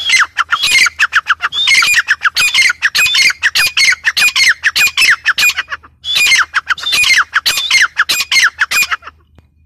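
Grey francolin (teetar) calling: a loud, fast series of falling notes, about five a second, with a brief break about six seconds in, stopping about nine seconds in.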